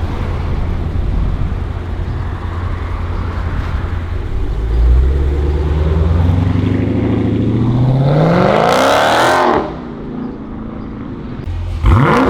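2016 Dodge Challenger Scat Pack's 392 HEMI V8 with its mid mufflers deleted, running low and steady, then accelerating hard with the exhaust note climbing steeply in pitch until it cuts off suddenly about three quarters of the way in. Near the end it revs sharply again.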